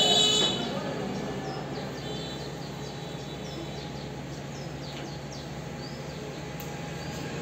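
Steady low workshop hum with faint, scattered bird chirps. A brief shrill sound is heard at the very start and fades within half a second.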